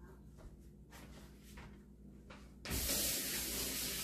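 Aerosol spray can giving one long, even hiss that starts suddenly about two and a half seconds in.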